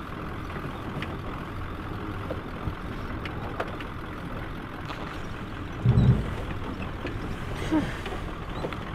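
Cabin noise of a van driving off-road over rough ground: a steady engine and tyre rumble with scattered small rattles and clicks, and a heavy low thump about six seconds in.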